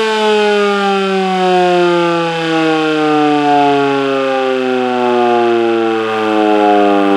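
Electromechanical warning siren winding down, its several-note tone sliding slowly and steadily lower in pitch.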